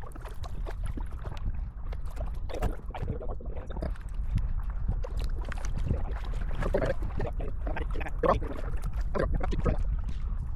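Kayak paddles dipping and splashing in the water at irregular intervals, over a steady low wind rumble on the microphone.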